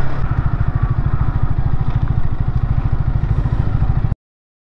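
Sport motorcycle's engine running at low revs as the bike rolls to a stop, with a fast, even low exhaust pulsing. The sound cuts off suddenly about four seconds in.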